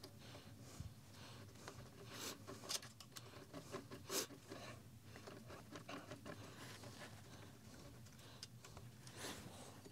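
Faint scattered clicks and scrapes of small screws and metal parts being handled, and a small screwdriver turning a screw into a metal plate on a laser engraver's frame. The sharpest click comes about four seconds in.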